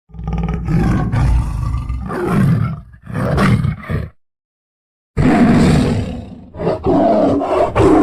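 Tiger roaring and growling: a run of deep, rumbling roars for about four seconds, a pause of about a second, then another loud roar near the end.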